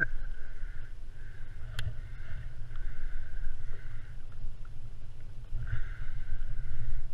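A spinning reel is cranked in stretches as a fish is pulled up from the bottom on a bent rod, whirring while the handle turns, with one sharp click about two seconds in. Under it runs a steady low rumble of water and wind around the kayak.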